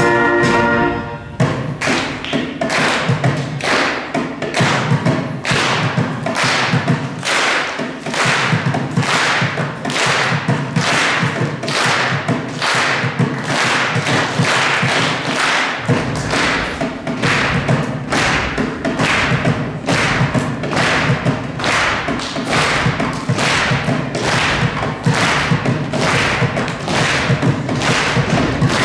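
A school concert band's wind chord cuts off about a second in, and a steady percussive beat of thumps and taps carries on alone. A deeper layer joins the beat about halfway through.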